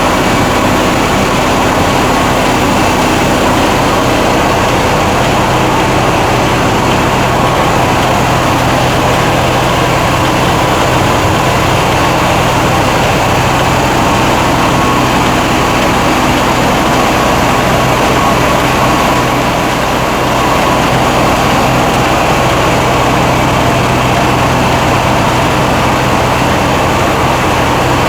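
Mitsubishi PS120 single-cylinder diesel engine running steadily under load, driving a rice huller whose milling machinery adds a dense, continuous clatter. There is a brief slight dip in loudness about twenty seconds in.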